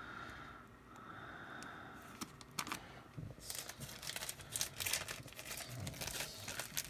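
Tissue paper crinkling and rustling as a graded card is unwrapped. It is faint at first and becomes dense, rapid crinkling about halfway through.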